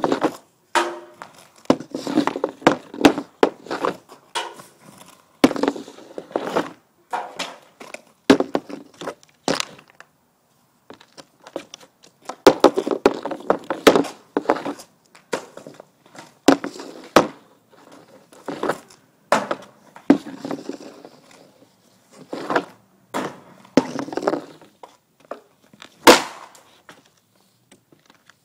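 Easton 65S hockey stick working pucks on a wooden shooting board: runs of quick clacks of blade on puck and board while stickhandling, broken by single sharp cracks of shots, the sharpest about 26 seconds in.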